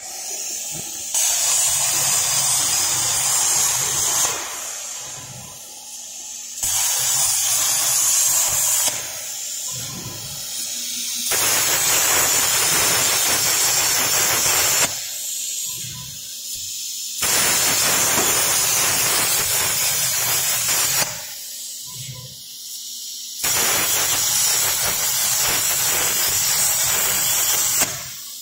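Huayuan LGK 200A air plasma torch cutting mild steel plate: a loud, even hissing rush of the arc and gas jet that runs for a few seconds at a time and stops between cuts, five cuts in all. A low steady hum stays under the quieter gaps.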